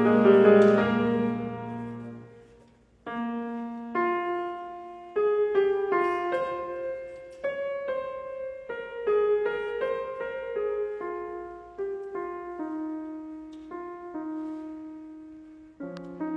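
Yamaha grand piano played solo: a loud chord rings and dies away, then after a short pause a slow line of single notes, about one a second, each left to ring. A fuller, lower passage begins near the end.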